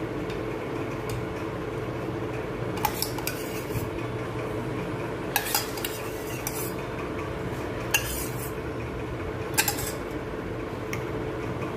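Steel spoon clinking and scraping against a bowl every second or two while stirring cooked sago pearls into a green agar jelly mixture, over a steady low hum.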